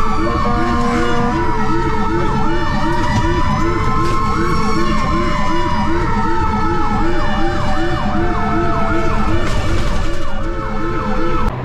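Several emergency-vehicle sirens sounding at once: a fast yelp repeating about three times a second over a slower wail that glides down in pitch, with steady tones breaking in and out. The sirens cut off suddenly just before the end.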